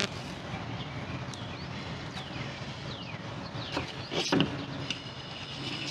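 Utility knife scoring round the insulation of a heavy 2 AWG battery cable, the blade squeaking in short falling squeaks as the cable is rocked against it, with a few sharp clicks, the loudest about four seconds in.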